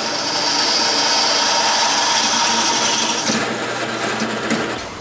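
Handheld power tool running steadily on steel, its tone changing and weakening about three seconds in, then winding down near the end.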